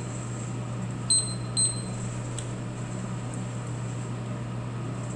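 Cyclone hot-air coffee roaster's fan running with a steady hum as the beans cool with the heat off. About a second in there are two short high electronic beeps, and a few faint pops follow: leftover second-crack pops from the beans, which are normal after the heat is cut.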